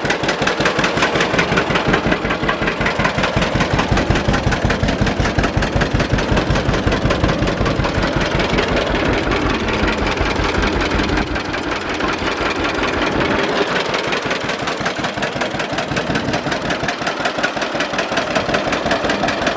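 John Deere A two-cylinder tractor engine running with a steady, even pulse of exhaust pops. About 11 seconds in the deep bottom of the sound drops away somewhat, while the rhythm carries on.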